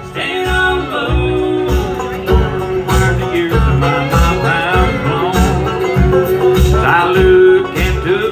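Bluegrass band playing live: fiddle, banjo, acoustic guitar and upright bass, with a steady bass beat.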